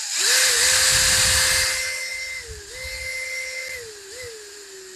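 Power drill spinning a wooden dowel while sandpaper is held around it: a loud sanding hiss that is strongest for the first two seconds and then eases off, over a steady motor whine. The whine dips briefly in pitch twice and recovers each time.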